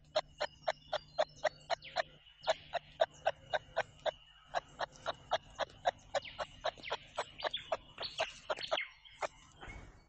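Wallaby clucking: a rapid, regular series of sharp clicks, about three to four a second, over a faint steady high tone. The clicks stop about a second before the end.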